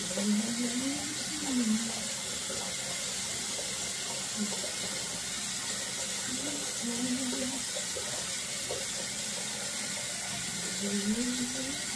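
A steady hiss, with a low voice sounding briefly near the start, about midway and again near the end.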